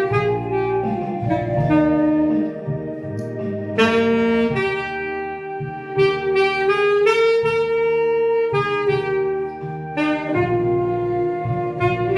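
Saxophone playing a slow melody of long held notes over an accompaniment.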